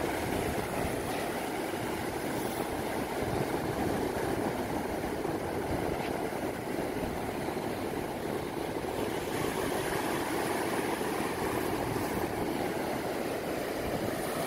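Steady rushing noise of ocean surf breaking along the beach, mixed with wind.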